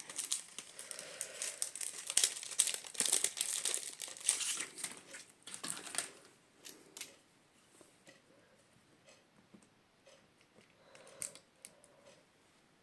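Paper crinkling and rustling as it is handled, dense for about the first six seconds, then giving way to a few faint small taps and rustles.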